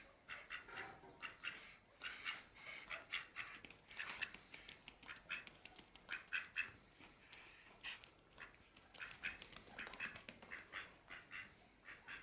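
Muscovy ducks calling, a steady stream of short calls several times a second.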